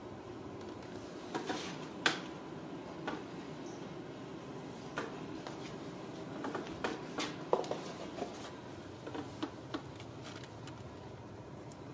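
Ragdoll kittens playing indoors: scattered light taps and knocks, sharpest about two seconds in and around seven and a half seconds, over a steady low room hum.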